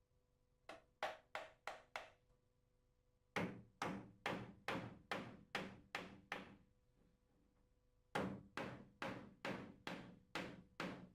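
Hammer tapping small nails into a timber edging strip on a plywood bath panel: three runs of quick, even taps, about three a second, with short pauses between.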